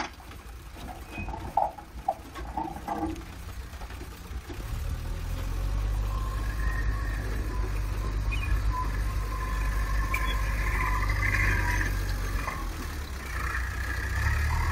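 JCB 3DX backhoe loader's diesel engine running, growing louder about four seconds in as the machine pulls away with its loader bucket raised, with a steady whine over the engine. A few knocks of loose stones come in the first seconds.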